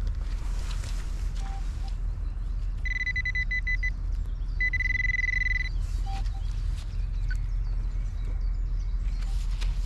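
Metal detector beeping at a target: a short, choppy high tone about three seconds in, then a steady high tone lasting about a second, over a steady low rumble.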